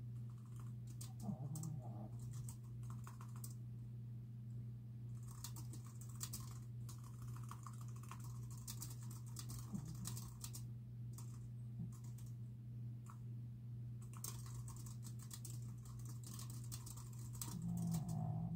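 Typing on a computer keyboard in bursts of rapid key clicks with short pauses between them, over a steady low hum. A short low sound near the end is the loudest moment.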